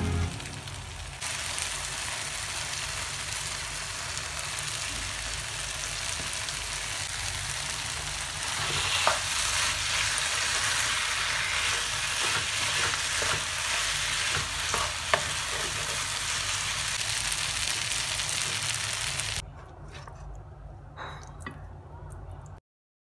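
Chicken roast sizzling in oil in a nonstick stone-coated frying pan, a steady hiss that starts about a second in as coconut oil goes in, with a spatula stirring and a few sharp scrapes and clacks against the pan. Near the end the sizzling stops and a few light clicks follow as the chicken is lifted onto a plate.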